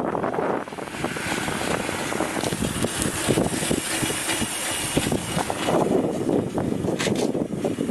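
Riding noise of a homemade e-bike driven by a washing-machine motor: a steady rush of wind and rolling noise.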